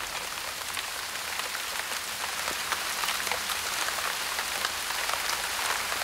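Rain falling steadily in a tropical rainforest: a dense, even hiss of rain with many separate drop hits.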